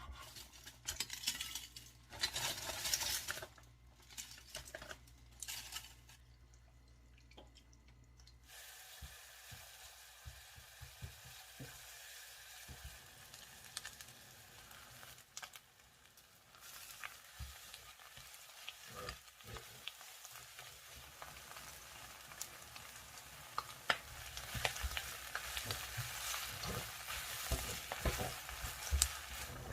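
Several seconds of handling and rubbing noises, then food frying in a pan with a steady sizzle and scattered sharp clicks of a utensil, a little louder near the end.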